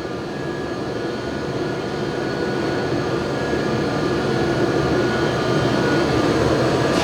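Steady mechanical hum and rushing air noise with faint steady tones, growing slowly louder.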